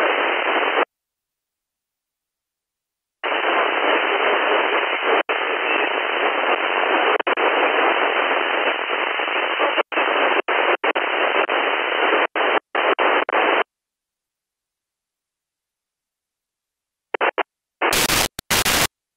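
Software-defined radio receiver's audio output giving steady hiss from an L-band satellite signal. It cuts out abruptly for a couple of seconds, returns, then breaks up into choppy fragments and stops. Near the end come a few short bursts of harsher, fuller hiss.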